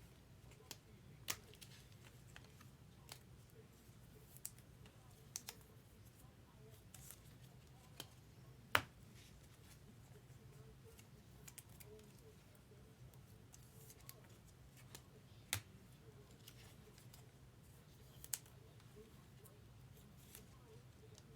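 Trading cards being handled and slid into plastic card sleeves: faint, scattered light clicks and ticks, the sharpest about 9 and 15 seconds in, over a low steady hum.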